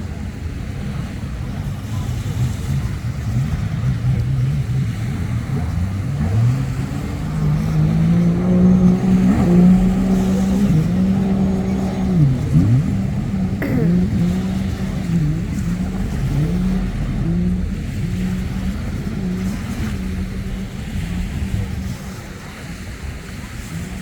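Racing jet ski engines whining at high revs. The pitch climbs and grows louder as one comes close, then drops sharply and comes back up several times as the throttle changes.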